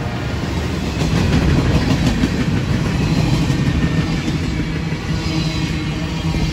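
Freight train cars rolling past close by: the steady, loud noise of steel wheels running on the rails.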